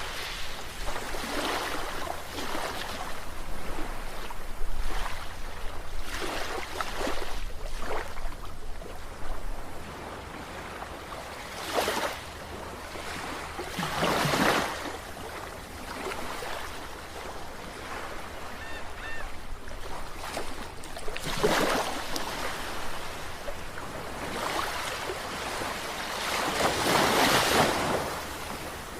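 Ocean waves washing in over a steady surf hiss, with several louder swells breaking in turn; the biggest comes near the end.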